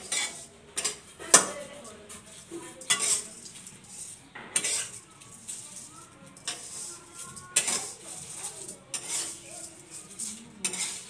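Metal spatula scraping and knocking against a metal kadai as dry vermicelli is stirred and roasted, a sharp stroke every second or two.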